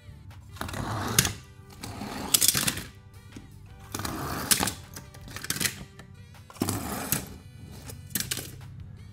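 Background music with repeated bursts of crinkling and rustling from toy packaging being handled and opened, about six times at irregular intervals, louder than the music.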